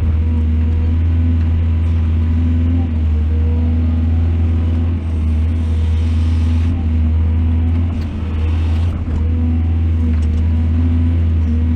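Excavator's diesel engine running with a steady low drone. A stretch of hissing noise comes in about five seconds in and lasts a couple of seconds.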